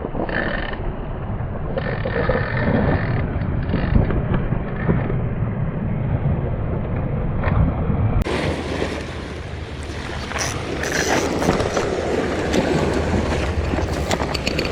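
Wind on the microphone over the wash of sea surf: a steady rushing noise. The sound changes abruptly about eight seconds in and becomes brighter.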